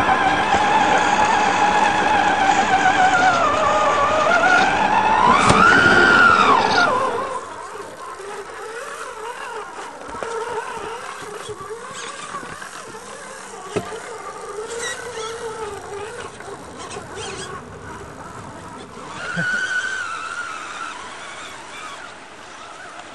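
Whine of a radio-controlled scale 4x4 truck's electric motor and gears, rising and falling in pitch with the throttle, loud for the first seven seconds or so. After that, fainter whine from the trucks crawling, with one short rise in pitch near the end.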